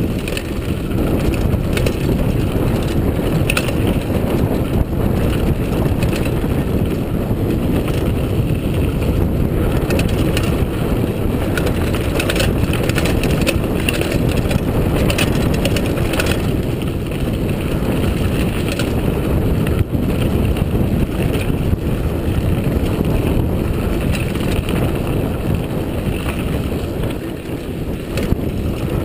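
Mountain bike descending a dirt trail at speed: steady wind buffeting on the microphone over the rumble of knobby tyres on packed dirt, with scattered clicks and rattles from the bike over bumps.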